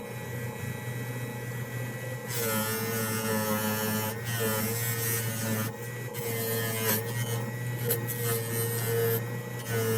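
Small electric motor running with a steady hum, a higher tone above it wavering up and down in pitch.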